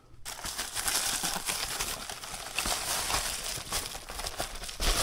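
Packing material crinkling and rustling as it is handled, a dense run of small crackles while items are unwrapped from the box.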